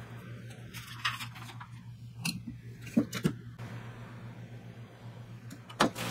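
Clamshell heat press being clamped shut over a Teflon sheet, with a few knocks and clunks between about two and three and a half seconds in, then a sharp clunk near the end as the platen is lifted after a short press. A steady low hum runs underneath.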